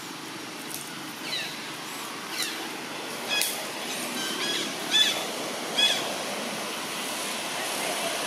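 A series of short, high-pitched squeaky animal calls, some sliding down in pitch, the loudest coming in a cluster about three to six seconds in, over a steady outdoor background hum.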